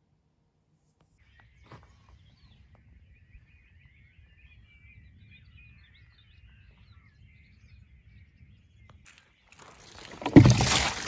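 Faint birds chirping over a low rumble, then near the end a loud rustling, thumping noise close to the microphone.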